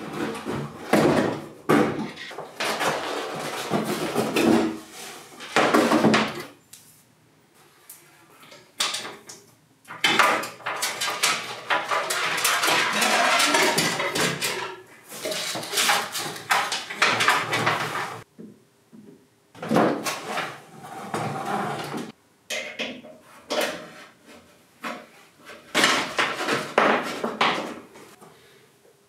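Metal clatter and scraping as steel control cables are handled and fed through a Vespa's pressed-steel body, with many sharp knocks and several long stretches of rubbing, the longest a few seconds in.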